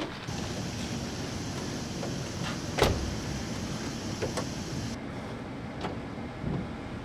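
A vehicle engine running, with a steady hiss that cuts off suddenly about five seconds in and a single sharp knock near the middle.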